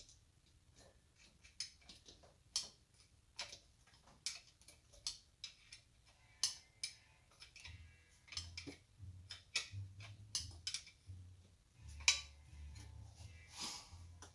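Faint, irregular metallic clicks, about one or two a second, as the wire terminal nuts on the ignition coil are tightened.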